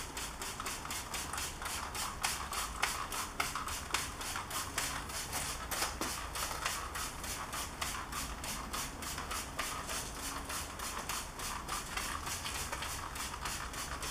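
Hand trigger spray bottle pumped over and over, a short spritz about three or four times a second, misting car cleaner onto wet bodywork.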